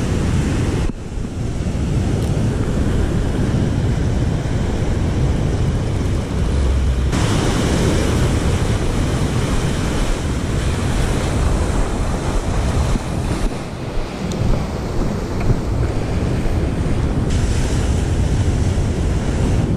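Ocean surf breaking and washing up the beach, with wind buffeting the microphone: a steady, loud rushing noise heaviest in the low end, shifting abruptly about a second in and again near seven seconds.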